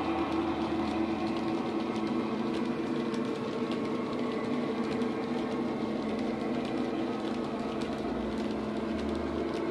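Class 66 diesel engine sound from a model locomotive's ESU LokSound 5 decoder, running on a Legomanbiffo sound file through an EM2 speaker. It holds a steady, even note with several constant tones. Faint light clicks from the model wagons' wheels on the track sit under it.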